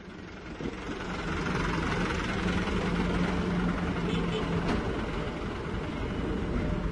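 Heavy diesel engine idling with a steady low hum, growing louder over the first second or so.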